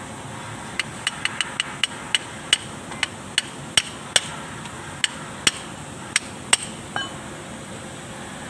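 A run of sharp metallic taps, each with a short ring, like a small hammer striking metal. They come quickly at first, then slow to about two a second, and stop about seven seconds in.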